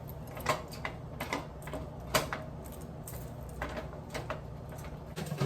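Scattered light clicks and taps of kitchen utensils against cookware, about five in all at irregular intervals, over a steady low hum.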